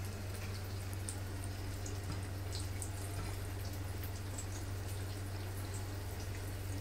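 Chicken pieces deep-frying in hot oil: a steady sizzle with scattered small pops, over a low steady hum.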